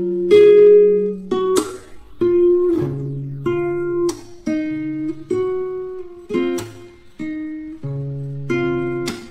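Background music: an acoustic guitar strumming chords, struck about once or twice a second with changing chords.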